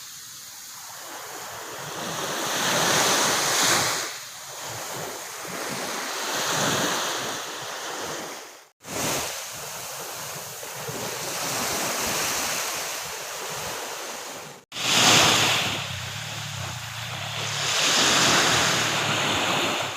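Ocean waves breaking on a beach, the surf swelling and washing back every few seconds. The sound cuts out abruptly for an instant twice, about nine and fifteen seconds in.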